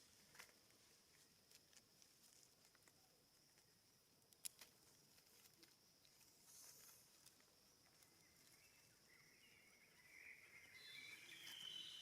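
Near silence, with a few faint scattered clicks and, from about three-quarters of the way in, a faint high broken chirping.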